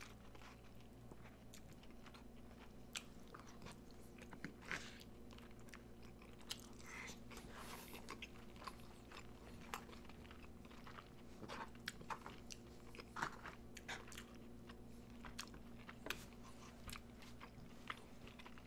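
Close-miked chewing of a mouthful of loco moco (hamburger patty, egg, rice and gravy): faint, scattered wet mouth clicks and smacks, over a faint steady hum.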